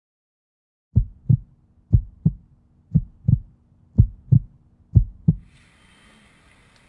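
Heartbeat sound effect: five low lub-dub double thumps, about one a second, with a faint hiss swelling in near the end.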